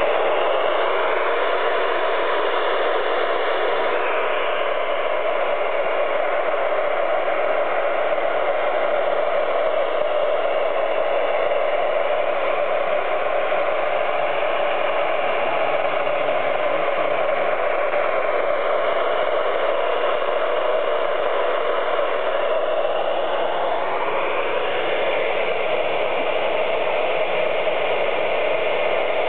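Amateur radio transceiver's speaker giving out steady receiver static while listening to a satellite downlink, with faint whistling tones that slide slowly in pitch now and then.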